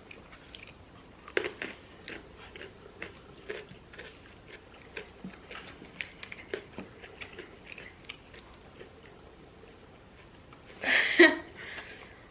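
Close-up chewing and biting of food, with soft irregular mouth clicks and small crunches. About eleven seconds in, one short loud vocal sound stands out.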